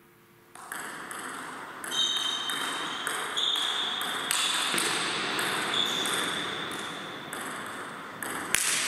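Table tennis rally: the ball clicking back and forth between bats and table, starting about half a second in and going on at about one to two hits a second.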